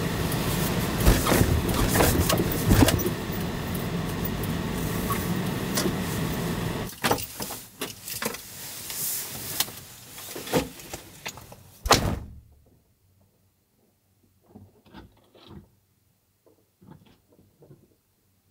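Suzuki light truck heard from inside the cab, its engine and snowy road noise running steadily with sharp knocks and rattles, quieter from about seven seconds in as it slows, then cutting off abruptly about twelve seconds in. After that there are only a few faint clicks and rustles.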